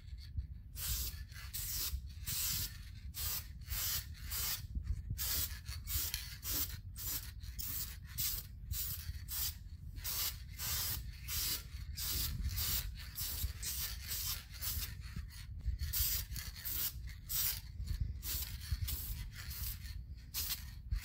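Aerosol spray-paint can hissing in many short bursts, about two a second, as paint is sprayed onto a still-wet base coat. A steady low rumble runs underneath.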